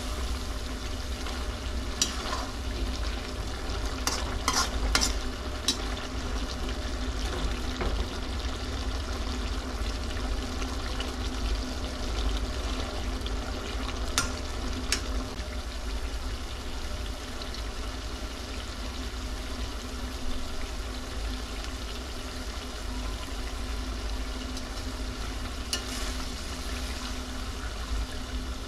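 Goat liver frying in a pan, sizzling steadily as it is stirred, with a few sharp clicks of a spoon against the pan.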